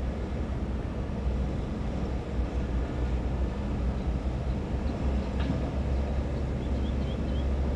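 Diesel engines of hydraulic excavators running steadily as they dig, a constant low rumble. There is a faint knock about five seconds in and a few faint high chirps near the end.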